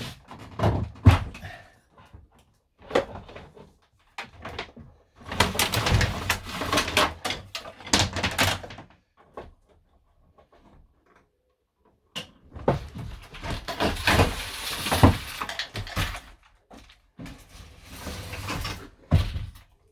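Knocks, scrapes and rattles of van interior panels and fittings being pried and pulled loose during a teardown. The sounds come in irregular clusters, with two longer stretches of continuous scraping and clattering separated by short pauses.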